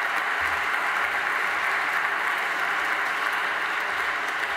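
Audience applauding steadily, many hands clapping together to welcome a speaker.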